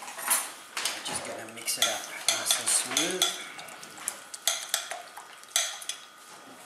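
A fork stirring and clinking against a glass bowl, mixing flour and eggs into batter: a fast, irregular run of clinks and scrapes.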